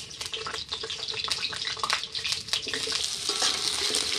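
Potato pieces sizzling as they are tipped into hot oil in an aluminium kadai. A metal spatula stirs them, clicking and scraping against the pan.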